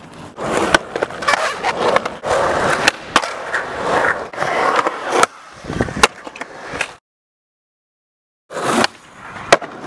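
Skateboard wheels rolling on concrete, with sharp clacks of the board striking the ground. The sound cuts out abruptly about seven seconds in, and a short stretch of rolling noise with one clack returns near the end.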